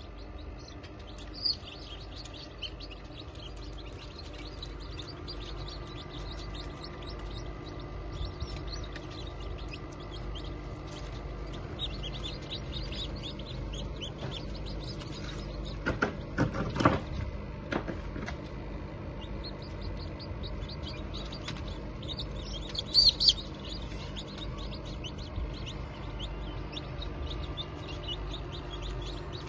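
Chicks peeping, many rapid high chirps overlapping, over a steady machine hum; a brief louder clatter about halfway through.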